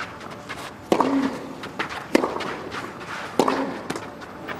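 Tennis rally on clay: a racket strikes the ball three times, about a second and a quarter apart, with a short grunt after two of the hits and lighter footstep scuffs between.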